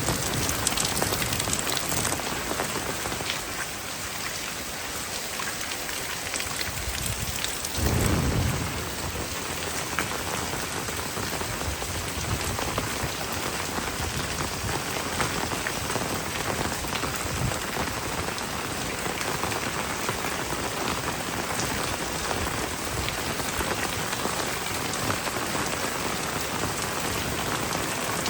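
Heavy rain pouring steadily, with a short low rumble about eight seconds in.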